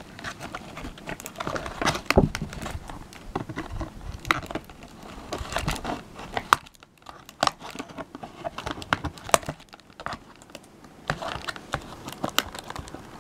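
Scissors snipping and cutting into a taped cardboard box: irregular clicks, snips and scrapes of blade on cardboard and tape, with some crinkling. It goes quieter for a moment about halfway through.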